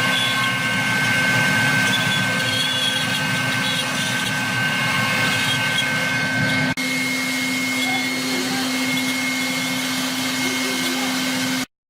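CNC wood router spindle running with a steady high whine over a loud hiss of machining noise. The sound changes abruptly about two-thirds of the way through, then cuts off to silence just before the end.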